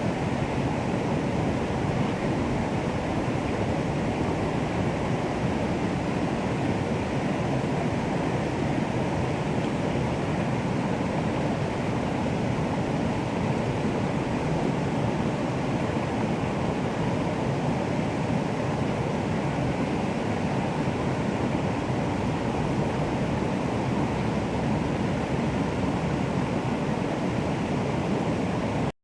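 Flowing water rushing steadily, an even unbroken noise that is fullest in the low and middle range.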